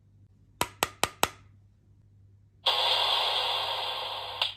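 Four sharp plastic clicks in quick succession from a Kamen Rider Progrisekey transformation toy being handled. After a pause, the toy's speaker plays about two seconds of a steady hissing electronic effect, which ends with a click.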